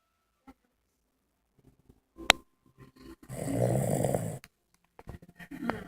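A sleeping pet snoring: near silence, then a sharp click about two seconds in, then one long, loud snore a little past the middle.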